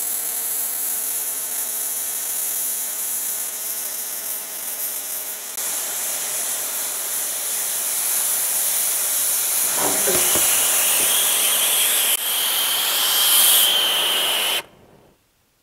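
Oxy-fuel cutting torch on a hand-cranked Mathey Dearman pipe beveler, hissing steadily as it cuts a bevel through the steel wall of a 30-inch pipe. The hiss grows louder about halfway through, a thin whistle joins near the end, and then the sound stops suddenly.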